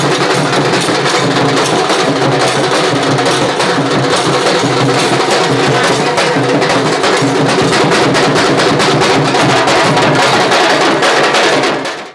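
Music with fast, dense drumming over steady low tones.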